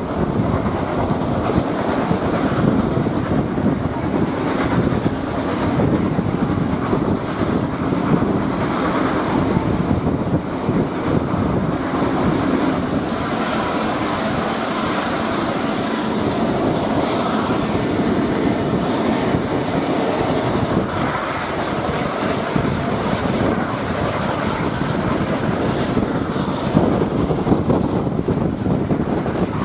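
Steady running noise of a passenger train hauled by NSWGR AD60 Garratt steam locomotive 6029 under way, heard from a carriage window: the locomotive working and the wheels on the rails, mixed with wind on the microphone.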